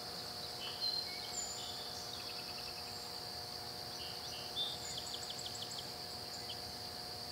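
Steady high-pitched insect chorus, like crickets, with scattered short bird chirps on top and a quick run of about five clicks about five seconds in.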